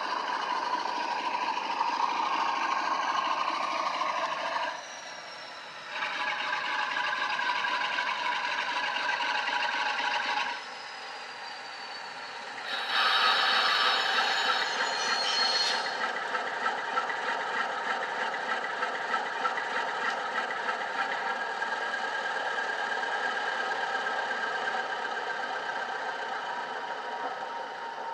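Sound decoder in a model Class 47 playing diesel engine sound through the model's small speaker, with a fast low ticking running under it. The engine note drops away briefly twice, and a louder, brighter sound lasts about three seconds near the middle. It then settles to a steady running note that slowly fades toward the end.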